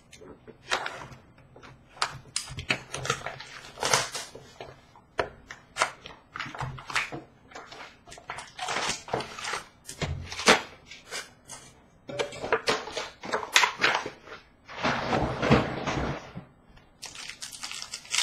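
Foil-wrapped hockey card packs being handled and torn open, wrappers crinkling and cards and cardboard tapping, in a string of irregular rustles and clicks with a longer stretch of rustling about fifteen seconds in.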